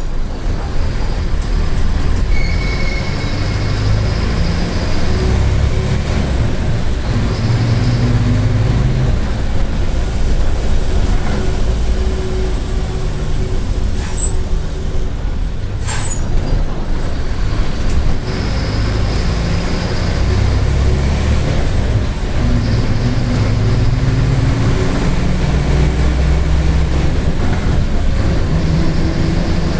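Mercedes-Benz OF-1722M bus under way, its engine pulling up through the gears with drops in pitch at the shifts, over a growling differential. Two short sharp clicks come about two seconds apart near the middle.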